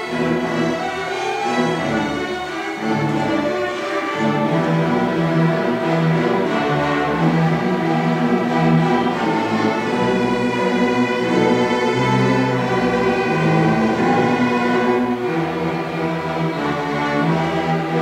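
A student string orchestra of violins, violas, cellos and double basses playing together, with continuous bowed chords and moving lines.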